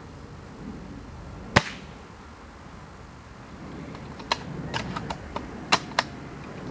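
Custom Tokyo Marui VSR-10 G-Spec spring-powered airsoft sniper rifle firing one shot, a sharp crack about a second and a half in. A few seconds later comes a quick run of about seven lighter clicks as the bolt is worked to cock the piston for the next shot.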